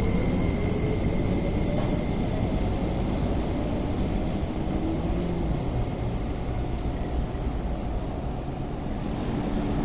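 MTR East Rail Line electric trains moving along a station platform: a steady rumble of wheels on rail with a faint motor whine that rises slightly at times.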